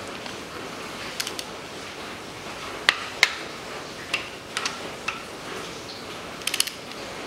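Torque wrench and socket tightening the cylinder head bolts of a Daewoo Nexia 1.5 engine to 30 N·m: a string of short, sharp metallic clicks and clinks, some in quick pairs and a tight cluster near the end, as each bolt is brought to torque.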